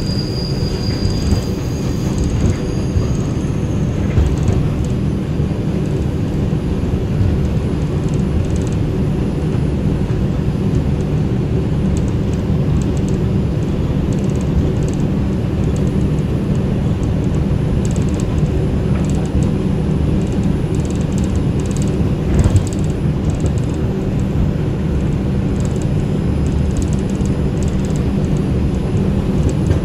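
New York City subway train running on elevated track, heard from inside the car: a steady low rumble of wheels on rail. A high wheel squeal fades out in the first couple of seconds, and a single sharp knock comes about three-quarters of the way through.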